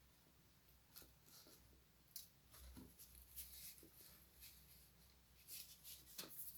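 Faint eating sounds from a donut mukbang: soft chewing with scattered mouth clicks and short crackles.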